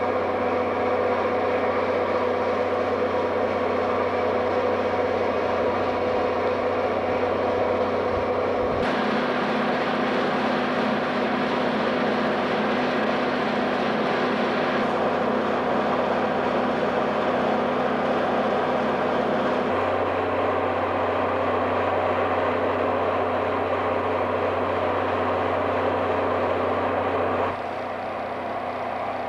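EMD FP7A diesel locomotive standing and idling, its 16-cylinder 567 prime mover giving a steady drone with a constant hum. The level drops near the end.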